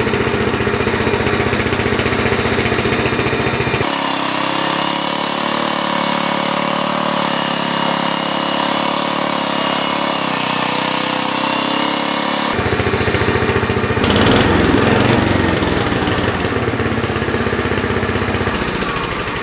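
1970 Sears Suburban SS14 lawn tractor's engine running, just started with a new ignition coil and fuel pump, while the tractor is driven away and back. The sound changes abruptly about four seconds in and again past twelve seconds, and is loudest around fourteen to sixteen seconds in.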